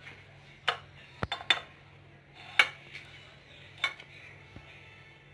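A serrated kitchen knife and a slice of cake knocking against a ceramic serving dish and plate, about six short, sharp clinks spaced irregularly.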